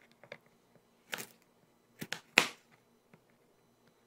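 A kitchen knife cutting raw rainbow carrots into sticks on a plastic cutting board: a few sharp, irregular cuts, the loudest about two and a half seconds in.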